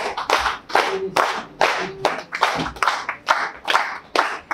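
Crowd clapping in unison to a slow, steady beat, about two and a half claps a second.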